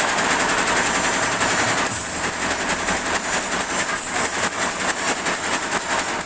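Computerized embroidery machine running, its needle bar and hook stitching at speed in a fast, even mechanical clatter.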